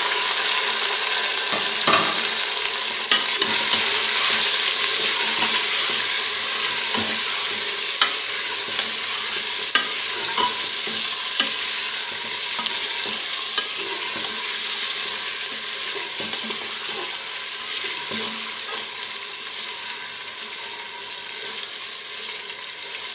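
Beef pieces sizzling in hot oil in a metal pot as they are stirred and fried, with a metal spatula clicking and scraping against the pot now and then. The sizzle grows gradually quieter toward the end.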